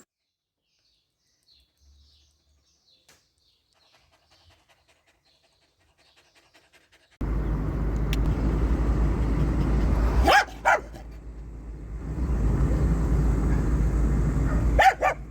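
A dog barks twice in quick succession about ten seconds in, and twice more near the end, over a loud steady rumbling noise that starts suddenly partway through. Before that it is nearly silent, with only faint scattered sounds.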